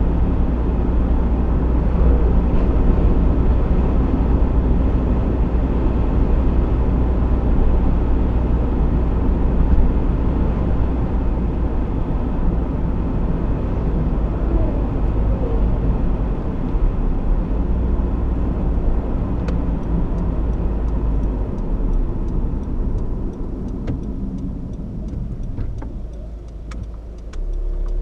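2015 Honda CR-V 1.6 i-DTEC four-cylinder turbodiesel driving, a steady low rumble of engine and road noise that grows quieter over the last few seconds, with faint ticking near the end.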